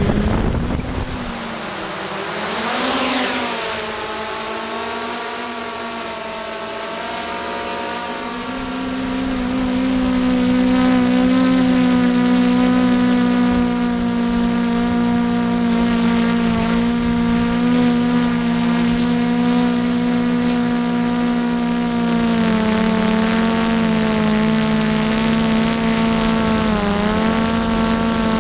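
Y6 tricopter's six brushless motors and propellers running in flight: a steady multirotor hum whose pitch wavers up and down as the motors change thrust. The pitch dips about two seconds in and again near the end.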